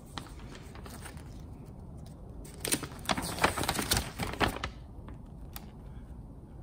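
Paper instruction sheets rustling and crackling as they are handled and their pages turned, with a burst of crackly rustling lasting about two seconds midway and a few single clicks of paper either side.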